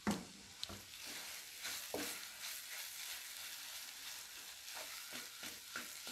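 Wooden spatula stirring and scraping a thick, crumbly moong dal and besan kachori filling around a nonstick pan on the heat, over a faint steady sizzle. A single knock at the start is the loudest sound.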